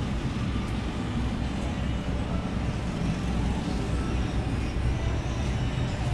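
Steady low rumbling background noise of a shop interior, with no distinct event standing out.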